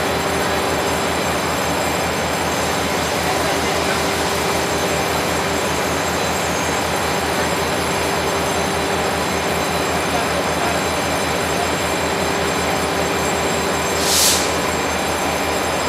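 Taiwan Railway R100-class diesel-electric locomotive R108 idling, a steady low throb under a constant hum. A short hiss about fourteen seconds in.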